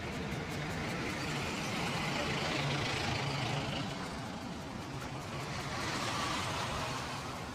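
Steady street traffic noise, a continuous hum of vehicles and engines.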